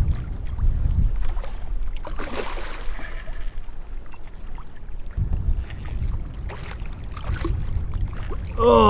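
Wind rumbling on the microphone of a kayak on open water, with water splashing and a few light knocks against the hull.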